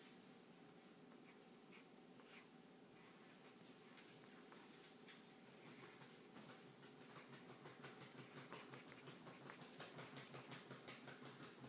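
Faint scratching of a pencil drawing on paper: quick short strokes one after another, growing a little louder and busier about seven seconds in.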